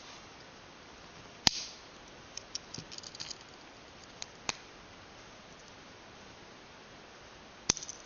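Fold-out tools of a stainless-steel multi-tool pocket knife clicking as they are swung open and snapped shut against their springs. There is a sharp snap about a second and a half in, then a run of small metal ticks, two lighter clicks, and another sharp snap near the end.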